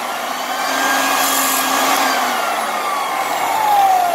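Clarke American Sanders Super 7 floor edger running a brief test cut with its sanding pad on the floor. Its motor whine holds at speed, then about two seconds in starts falling steadily in pitch as the motor and disc coast down after being switched off.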